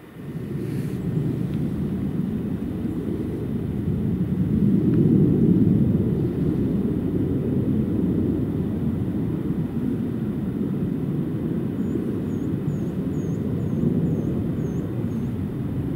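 Wind buffeting the microphone: a heavy, deep rumble that cuts in suddenly at the start and keeps swelling and easing in gusts.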